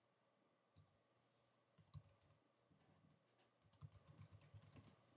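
Faint clicks of keys typed on a computer keyboard: a few scattered keystrokes, then a quick run of them about three and a half seconds in, as a password is typed.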